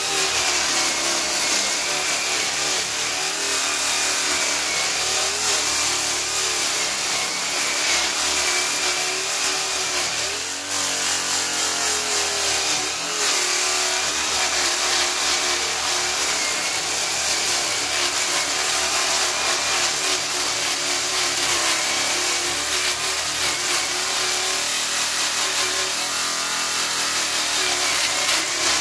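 Corded electric drill spinning a hook-and-loop sanding disc against jujube wood: a steady motor whine over the rasp of abrasive on wood. The pitch wavers a little as the disc is pressed and eased, with a short dip about ten seconds in.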